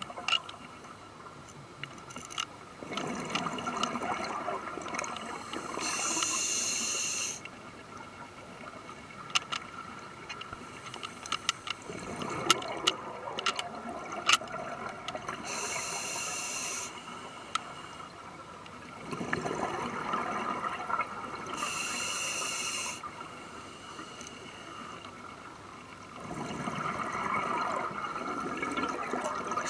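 Scuba diver breathing through a regulator underwater: a short high hiss of each inhalation alternating with a longer bubbling rush of exhaled air, about every six to seven seconds. Scattered sharp clicks sound in between.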